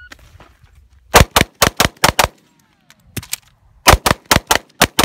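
A .40 S&W pistol firing twelve rapid shots in two strings of six, each string about a fifth of a second between shots. Between the strings is a pause of about a second and a half for the reload, with one fainter knock in it.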